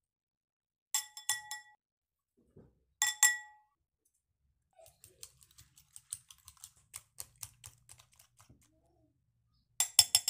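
A metal spoon tapping a glass bowl with ringing clinks, twice, then a run of quick light clicks as the spoon beats raw eggs against the glass, and another quick burst of ringing taps near the end.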